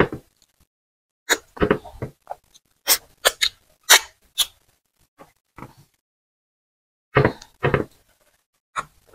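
Close-miked mouth sounds of eating by hand: wet chewing and sharp lip smacks as soup is sucked off the fingers, in short separate bursts with pauses between.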